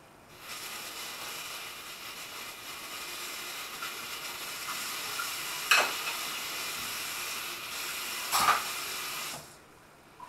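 Diced pork and garlic frying in oil in a stainless steel pan: a steady sizzling hiss, broken by two sharp pops of spattering fat, one about halfway through and one near the end. The sizzle starts about half a second in and cuts off suddenly near the end.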